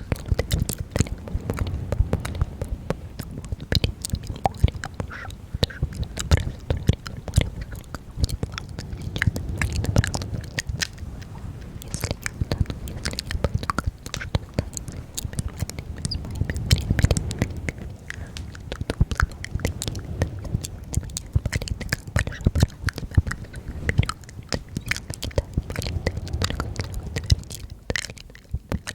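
ASMR mouth sounds close to the microphone: a dense run of wet clicks and smacks, over recurring soft low swells.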